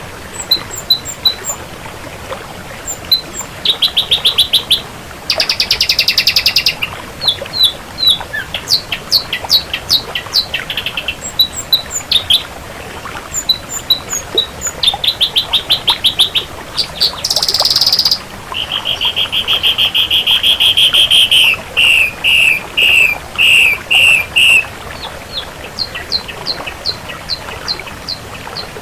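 Ashy drongo singing a varied song: strings of sharp repeated whistled notes, rattling trills, and a long buzzy trill about two-thirds of the way in followed by a run of clipped notes.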